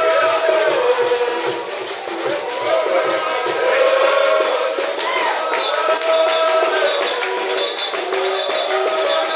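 Church congregation singing a hymn together in several voices, with a rhythmic low beat underneath.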